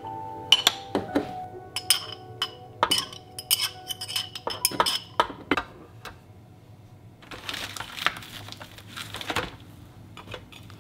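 Metal spoon clinking against a glass jar and glass bowl as black olives are scooped out, many quick sharp clinks with a short ring, over the first half. Later comes a couple of seconds of soft rustling, with gentle piano music throughout.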